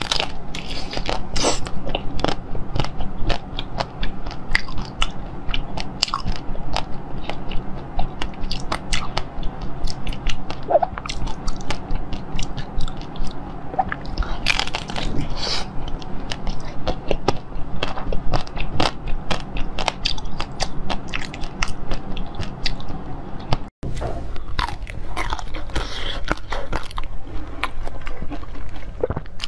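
Close-up biting and chewing of frozen jelly: repeated sharp, irregular crunches as the hard jelly breaks, with chewing in between, over a steady low hum.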